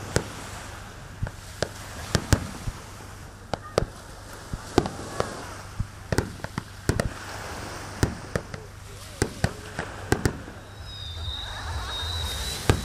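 Fireworks display: aerial shells bursting in quick, irregular succession, a string of sharp bangs about one to two a second.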